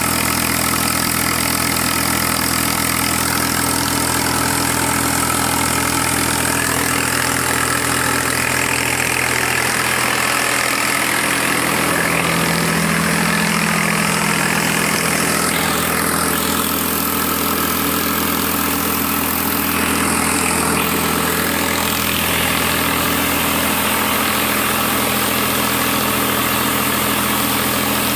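Swaraj 855 tractor's three-cylinder diesel engine running steadily at about 1,600 rpm, driving a generator through its PTO shaft.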